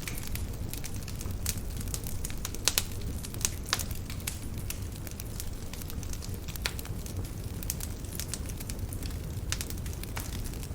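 Wood campfire burning, with irregular sharp crackles and pops over a steady low rumble.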